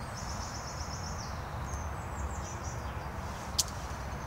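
Woodland birds singing: a rapid high trill of about ten notes in the first second or so, then scattered chirps, over a steady low rumble. A single sharp click about three and a half seconds in.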